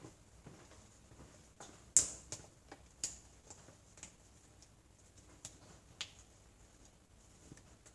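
Scattered light clicks and taps, irregularly spaced, the loudest one about two seconds in.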